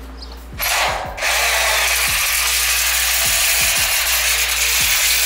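Power drill driving a self-drilling screw into galvanized steel stud profile. There is a short burst, then a steady run of about four seconds.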